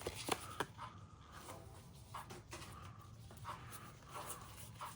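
Faint, scattered soft clicks and rustles of Pokémon trading cards being handled and flipped through by hand.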